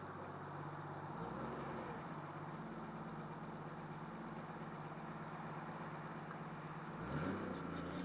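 Turbocharged car engine idling steadily, then briefly revved near the end with a short hiss as the revs rise and fall; the owner is trying to show a weird turbo noise.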